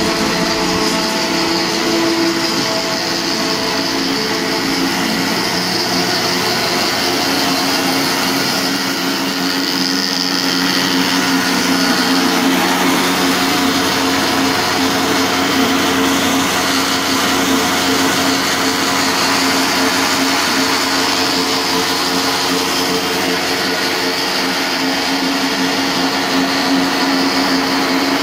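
Two-stage raffia plastic recycling machinery running: a loud, steady motor drone with held hum tones over a wide hiss. The hum's pitch shifts slightly about halfway through.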